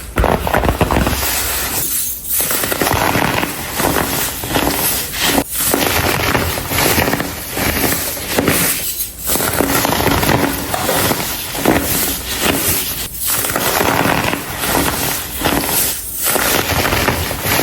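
Blocks of compressed baking soda crunching and crumbling as they are crushed, a dense crackle broken by short pauses about every three to four seconds.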